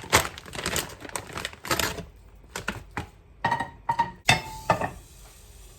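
Kitchen items being handled: a run of clattering knocks and scrapes, with brief ringing tones around the middle, like a dish or utensil struck.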